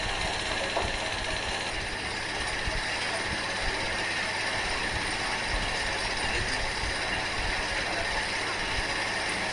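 Manual metal lathe running steadily: an even mechanical whir with several held tones.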